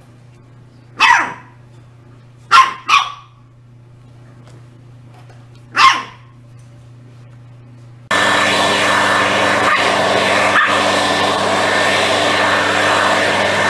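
Shiba Inu puppy giving four short, sharp barks. About eight seconds in, the steady loud running of a gas-powered leaf blower engine takes over abruptly.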